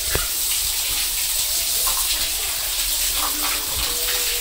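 Steady hiss of running or splashing water, with a single knock just at the start.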